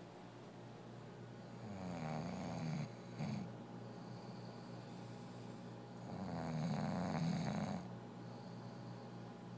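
Snoring: two long snores with a wavering pitch, about four and a half seconds apart, the first followed by a short, brief snore.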